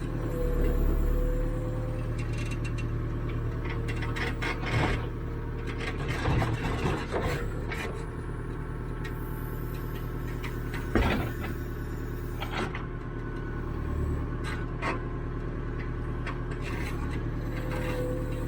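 Caterpillar 428E backhoe loader's diesel engine running steadily, heard from the operator's seat, with scraping and a few sharp knocks from the digging work. The loudest knock comes about eleven seconds in, and a brief higher whine rises near the start and again near the end.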